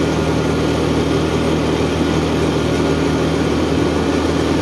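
ATV (quad bike) engine running at a steady, unchanging pitch as the quad is ridden.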